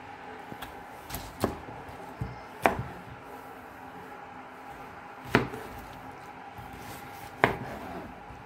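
Kitchen knife cutting a peeled cucumber and knocking on the cutting board: a handful of sharp chops at irregular intervals.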